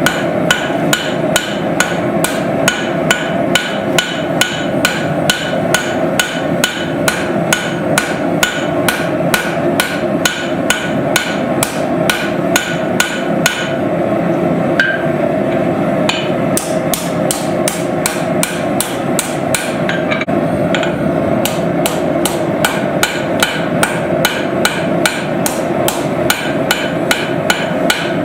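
Blacksmith's hammer forging steel on an anvil: a long steady run of blows, about three a second, with a couple of short pauses partway through, over a steady drone.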